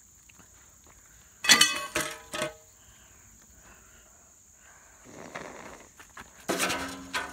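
Sledgehammer striking an old metal grill with a loud ringing clang, followed by two smaller clanks as the knocked-off lid hits the ground. Another loud ringing hit on the metal comes near the end. The lid is heavy, taken for cast iron or cast steel.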